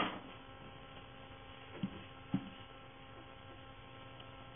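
Steady electrical hum, a stack of even tones, with two faint short sounds about two seconds in.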